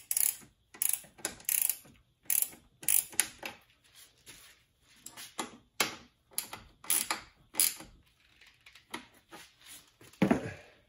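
Ratchet wrench clicking in short irregular runs as it tightens the 10 mm bolts that hold the radiator fan shroud, with a louder knock near the end.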